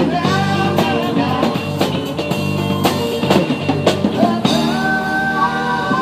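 Rock music with a drum kit. About four and a half seconds in, the drum hits thin out and long held notes take over.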